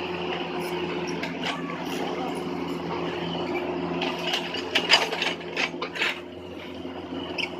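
Hydraulic excavator's diesel engine running steadily, with a quick run of sharp knocks and cracks from about four to six seconds in as it works on the tree.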